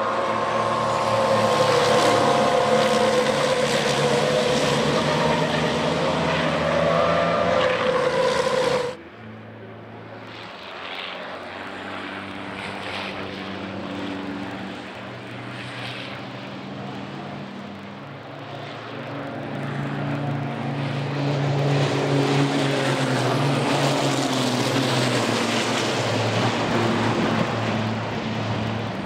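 Race trucks' diesel engines running hard as they pass at speed. About nine seconds in the sound drops off suddenly, then grows louder again from the middle of the stretch as more trucks come through.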